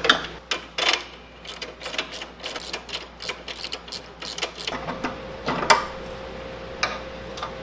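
Rear brake adjuster nut on a Honda CA160's brake rod being turned by hand, giving a run of light clicks a few times a second as the rear brake is backed off for more play. A few louder metal knocks follow near the end.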